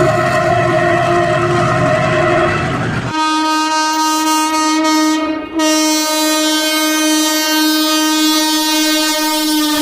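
Indian Railways train horn sounding one long, steady note over train rumble. About three seconds in the rumble drops away and the horn carries on as a cleaner, brighter held tone, dipping briefly about halfway through.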